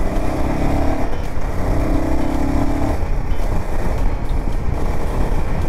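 Royal Enfield Himalayan 450's single-cylinder engine running as the bike picks up speed on the road, under heavy low wind and road rumble. A steady engine tone holds twice for about a second each in the first three seconds.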